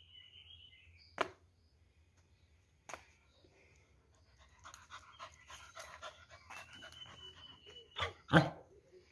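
Dog panting in soft, uneven breaths, then two short barks near the end, with a single sharp short sound about a second in.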